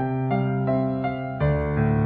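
Background music: a gentle melody whose notes change about three times a second, moving to a new chord about one and a half seconds in.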